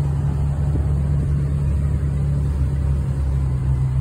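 A sightseeing boat's engine running steadily while the boat cruises along, a low, even drone.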